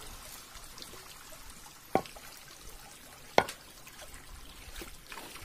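Water trickling and pouring as water buffaloes standing in a shallow stream are washed down with a bowl. Two short, sharp splashes come about two and three and a half seconds in.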